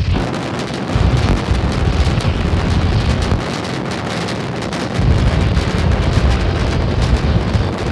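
Starship SN8's three Raptor rocket engines firing in ascent: a continuous crackling rumble, heavy in the low end, swelling about a second in and again about five seconds in.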